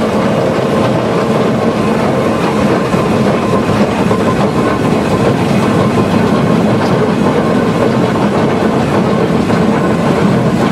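Climax geared steam locomotive running, heard from inside its cab: a loud, steady clatter of the engine, gearing and wheels on the rails.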